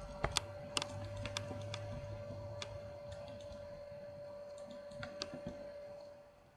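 Scattered, irregular clicks of a computer keyboard and mouse, over a steady faint hum.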